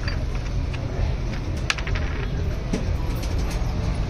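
A few light metallic clicks as steel gearbox gears and shafts are handled, over a steady low rumble.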